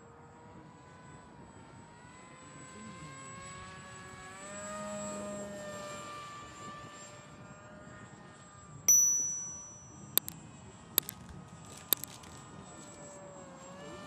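Brushless motor and three-blade propeller of a small foam RC flying wing whining in flight, rising in pitch and loudest about five seconds in, then easing back. A single bright ding about nine seconds in is the loudest sound, followed by three sharp clicks about a second apart.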